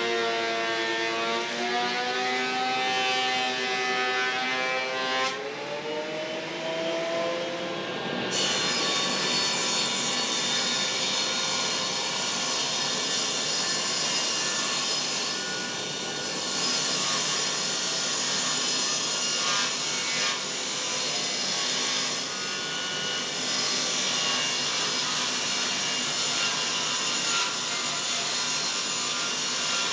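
A power saw cutting wood. For the first eight seconds it runs with a wavering pitch, and from about eight seconds in it cuts steadily.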